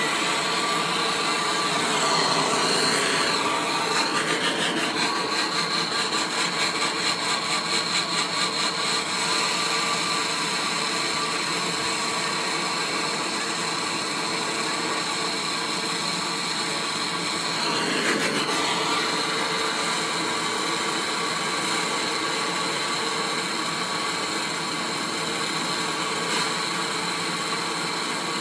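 A motor-driven machine or power tool running steadily, with a stretch of fast pulsing a few seconds in.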